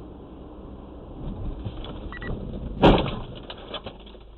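Car collision heard through a dashcam inside the car: steady road and engine noise, then one loud crash about three seconds in as the car strikes another car cutting across in front of it, followed briefly by rattling.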